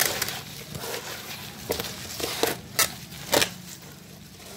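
A hand stirring moist kitchen scraps, dry leaves and soil together for compost: irregular rustling and crunching of dry leaves and peels, with a couple of sharper crackles a little after the middle.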